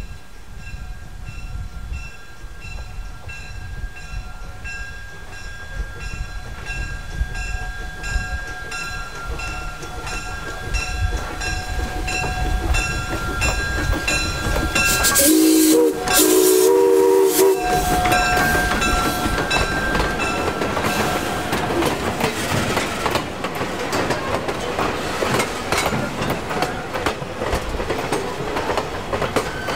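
Jeddo Coal No. 85, a small saddle-tank steam locomotive, passing and blowing its steam whistle loud in a short blast then a longer one about halfway through, over a railroad crossing bell ringing about twice a second. Then its passenger coaches roll by, wheels clattering over the rail joints.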